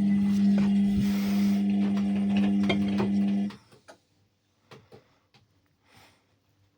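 Ariston washing machine running with a steady hum that cuts off suddenly about halfway through, followed by near quiet with a few faint clicks.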